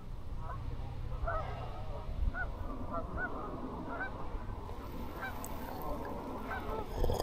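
A flock of geese honking, many short calls overlapping throughout, over a low rumble, with a knock near the end.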